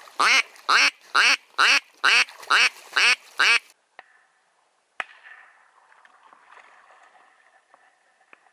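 A run of seven loud duck quacks, evenly spaced about two a second, each dropping in pitch, that breaks off abruptly. Two sharp clicks and a faint hiss follow.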